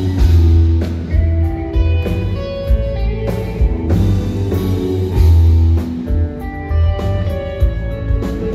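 Live rock band playing: electric guitar lines over heavy bass, drums and keyboards, with regular drum hits.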